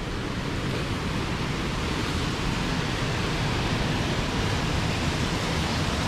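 Steady rush of flowing water, growing slightly louder.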